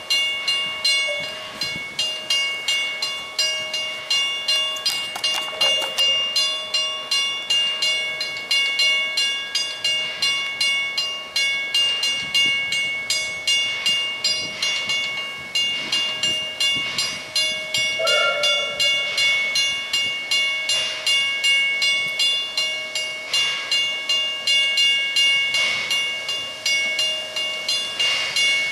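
Level crossing bell ringing steadily, about two strikes a second, warning of an approaching train.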